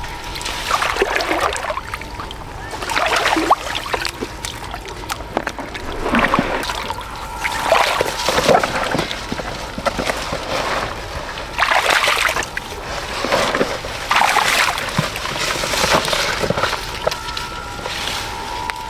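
Water splashing and sloshing in irregular bursts, one every second or two.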